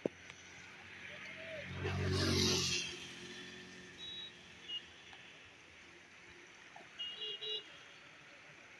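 A motor vehicle passes close by, its engine rising and fading over about a second, heard over the steady rush of a flooded river. A few short, high chirps or beeps follow near the middle and the end.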